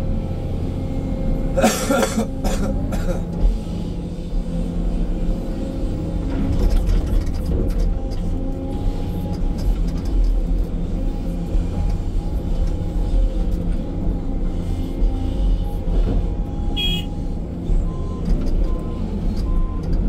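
Excavator's diesel engine and hydraulics running steadily while loading a dump truck, heard from inside the cab. A few sharp knocks come about two seconds in, and a steady on-off beeping starts near the end.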